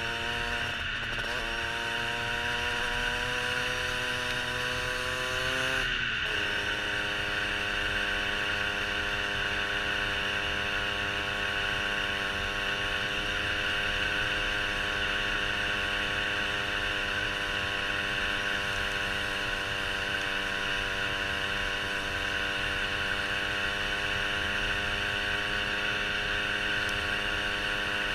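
Derbi Senda 50's two-stroke single-cylinder engine pulling through the gears: its pitch climbs, drops at a gear change about a second in, climbs again and drops at a second change about six seconds in, then holds a steady pitch while cruising. Steady wind and road hiss run underneath.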